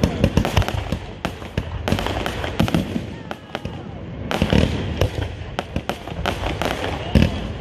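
Fireworks going off overhead: a rapid string of sharp bangs and crackles, several a second.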